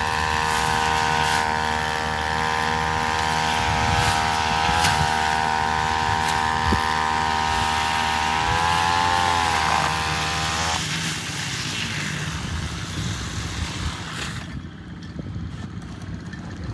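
Two-stroke backpack brush cutter running steadily at high revs while cutting grass. Its pitch dips and wobbles briefly about eight to ten seconds in. The engine note cuts off suddenly about eleven seconds in, leaving quieter outdoor noise.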